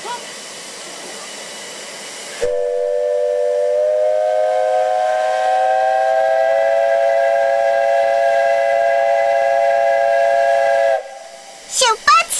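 Steam whistle of 8620-class steam locomotive 58654, blown in one long departure blast of about eight seconds that starts about two and a half seconds in. Several tones sound together and rise slightly in pitch as the whistle opens. Before it there is a steady hiss of steam.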